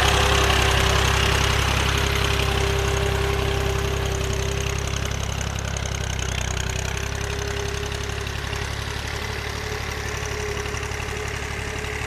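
Old tractor's diesel engine running as it pulls a cultivator through flooded mud, a steady low rumble with a whine over it, fading as the tractor moves away.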